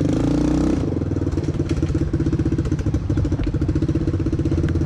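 1986 Honda Fourtrax 200SX ATV's single-cylinder four-stroke engine running hard at speed, with a rapid steady firing pulse. Its pitch rises briefly in the first second, then settles.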